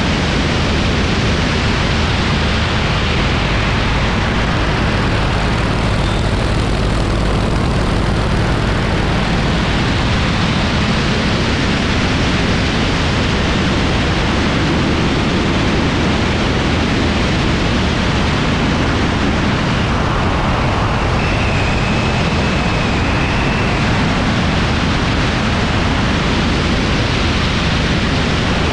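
Heavy wind rush over a wing-mounted microphone in flight, with the Yak-52's nine-cylinder radial engine running steadily beneath it.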